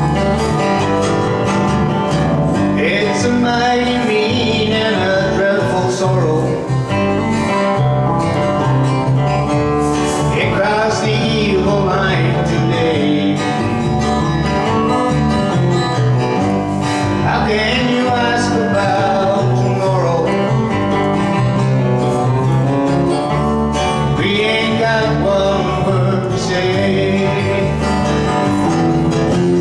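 A recorded country-bluegrass song playing, led by acoustic guitar.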